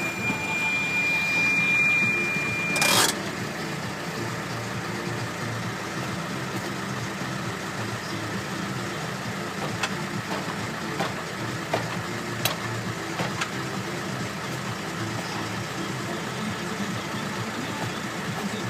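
New Holland T6020 tractor's diesel engine running steadily. A high steady beep sounds over it for about the first three seconds and ends in a short, loud rush of noise.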